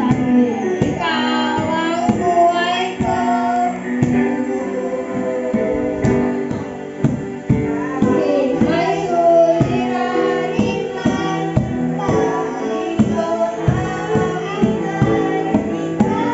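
Children singing a Tagalog worship song over instrumental accompaniment, with a cajón struck in a steady beat.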